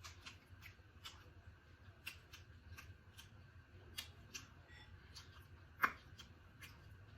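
Close-up eating sounds from a seafood boil: scattered soft clicks and smacks of chewing, with one sharper click about six seconds in.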